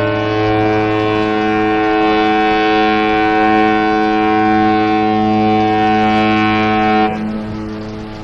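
Cruise ship's horn sounding one long, steady blast with several tones at once. About seven seconds in the upper tones cut out and a lower, quieter tone carries on.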